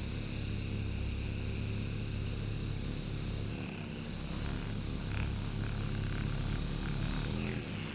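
Electric heated vibrating massage head running with a steady motor hum and a high whine; its pitch sags briefly near the end.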